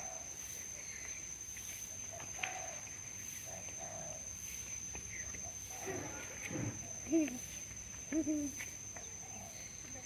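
Steady high-pitched drone of tropical insects, with a few short low calls breaking in about seven and eight seconds in.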